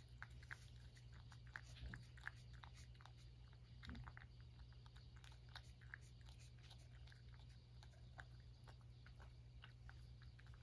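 Cat licking Churu lickable paste treat off a ceramic dish: faint, irregular wet tongue clicks, a few a second.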